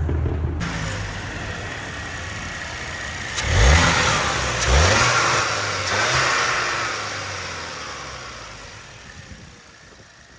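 A car engine revs twice in quick succession, about three and a half and four and a half seconds in, rising in pitch each time, then its sound fades away over the next few seconds.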